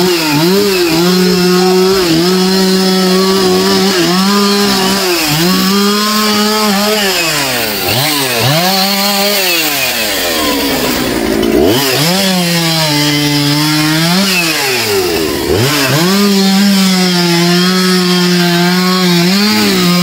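Two-stroke chainsaw cutting through a felled tree trunk. The engine revs high under load and dips back every couple of seconds. About halfway through it falls briefly to a low note before revving up again.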